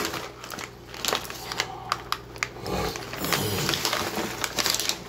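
Fast-food paper wrappers and packaging crinkling and rustling as they are handled, with irregular light clicks and knocks.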